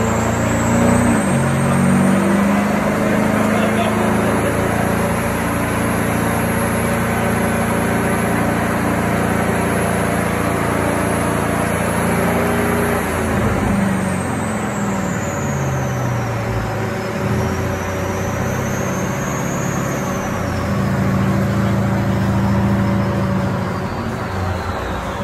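Mercedes-Benz E-Class saloon's engine running hard on a rolling-road dyno. The engine note climbs in the first few seconds, holds steady, drops sharply about halfway through, then rises and falls again.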